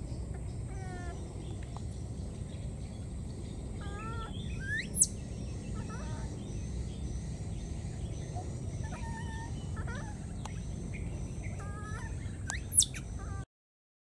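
Scattered short high-pitched animal calls, some wavering, and two sharp rising calls that are the loudest sounds, about five seconds in and near the end. Under them runs a steady low outdoor background noise with a thin steady high tone. Everything cuts off abruptly just before the end.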